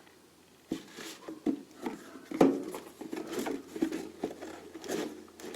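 Metal lathe parts being handled and tried together: a run of irregular clicks, clinks and knocks, starting about a second in.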